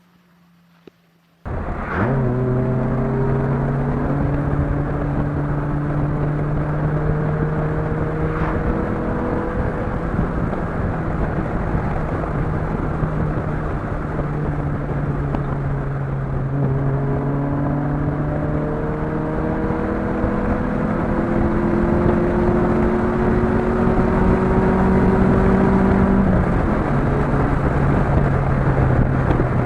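Chevrolet Vectra 2.2 8-valve four-cylinder engine with a sports exhaust, driven hard. Its note climbs in pitch, holds steady for several seconds, climbs again, then drops near the end at an upshift, over a constant rush of road and wind noise. The sound cuts in suddenly about a second and a half in.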